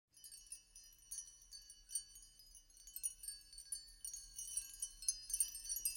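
Soft, high tinkling chime notes, many overlapping and ringing on, growing busier toward the end.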